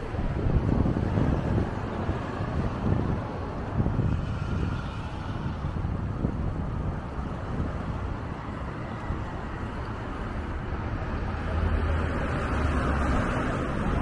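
Wind buffeting the microphone of a camera on a moving bicycle, over the steady noise of street traffic alongside.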